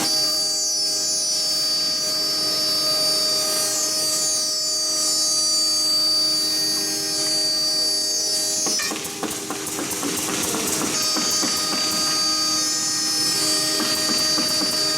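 Blue Elephant CNC router running a cut: a steady, high-pitched spindle whine over the hum of the axis motors. About nine seconds in the whine drops out and the sound briefly dips, then after about two seconds the whine comes back.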